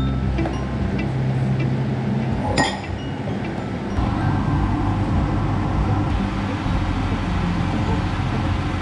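Kitchen clatter under a quiet music bed: a steady hiss, with one sharp clink of a utensil against a bowl about two and a half seconds in.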